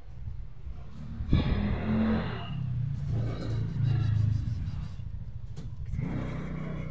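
A motor vehicle engine running with a low rumble, swelling louder as it revs about a second in and again around four seconds in.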